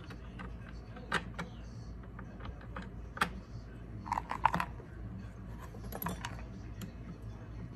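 Scattered light clicks and clatters of metal screws and hand tools being handled and picked over on a workbench, with a quick run of clicks about four seconds in.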